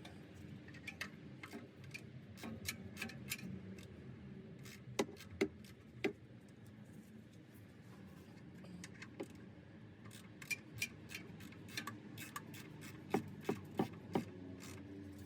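Faint, irregular metallic clicks of a ratchet wrench tightening the oil drain plug, coming in short spells with a few louder clicks about five seconds in and again near the end.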